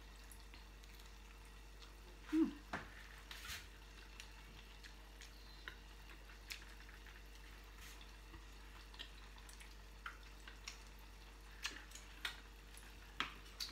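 Faint eating sounds: chewing a crispy squash fritter, with scattered small clicks and taps of fingers and food at a small sauce bowl, over a faint steady hum. A short voice sound comes about two and a half seconds in.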